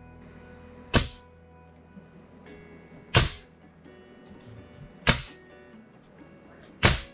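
Four sharp cracks about two seconds apart, each with a brief hiss trailing off, over steady background music.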